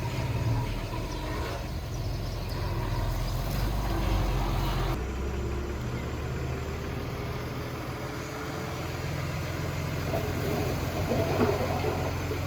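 Diesel engine of heavy earthmoving machinery running with a steady low drone. The sound changes abruptly about five seconds in, and some louder rattling comes near the end.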